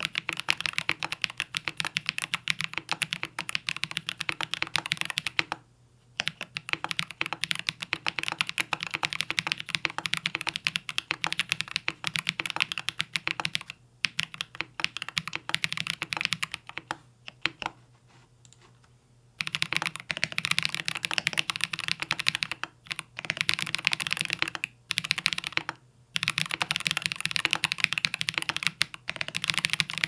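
Fast typing on a Cyberboard R3 mechanical keyboard with Krytox-lubed Holy Panda tactile switches and PBT keycaps: rapid, dense keystrokes. There are a few brief pauses and a longer lull near the middle.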